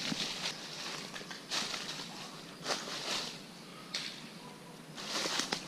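Irregular rustling of leaves and brush, several short scratchy bursts a second or so apart, as of someone shifting or stepping through dry undergrowth.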